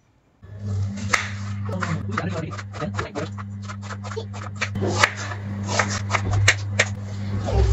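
Kitchen knife slicing red onion on a wooden cutting board: a quick, uneven run of crisp cuts, several a second, over a steady low hum.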